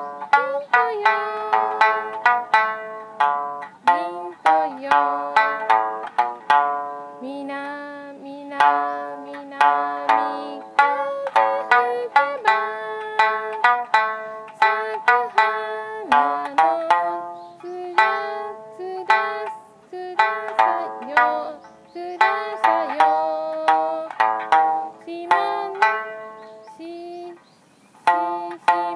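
Okinawan sanshin played solo, a melody of single plucked notes that each fade quickly, some bending up into pitch, with a brief pause near the end.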